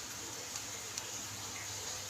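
Quiet room tone: a steady hiss with a faint low hum and a couple of faint ticks.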